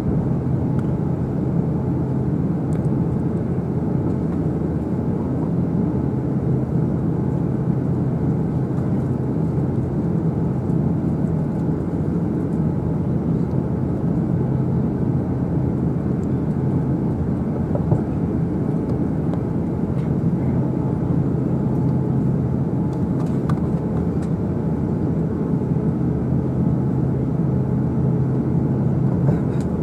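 Steady low hum and rush of an Airbus A350-900's cabin on the ground after landing, the engines and air conditioning running, with only a few faint clicks.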